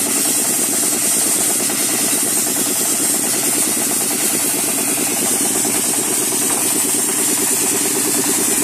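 Wet sandblasting rig working: the loud, steady hiss of the sand-and-water jet from the hand nozzle over the steady drone of the rig's belt-driven engine.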